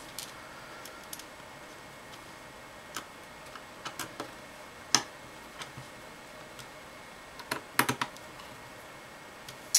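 Scattered light clicks and taps of a small screwdriver and tiny screws against the plastic underside of an HP TC1100 tablet as its cover screws are driven in. The sharpest click comes about five seconds in, with a quick run of clicks near the end.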